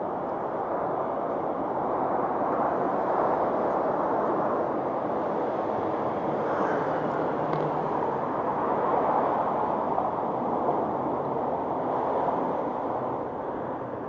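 Road traffic on a city bridge: a steady wash of tyre and engine noise from passing cars, swelling a little after a couple of seconds and easing off near the end.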